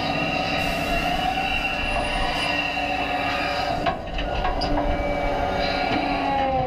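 Cat 320DL excavator running under load, its diesel engine and hydraulics giving several steady whining, squealing tones as the boom and bucket swing and dig. There is a sharp knock about four seconds in as the bucket works into the dirt.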